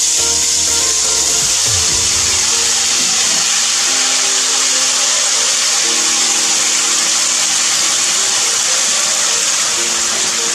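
Masala-coated hilsa fish pieces frying in hot mustard oil in a kadai: a loud, steady sizzling hiss as the fish and its paste hit the oil.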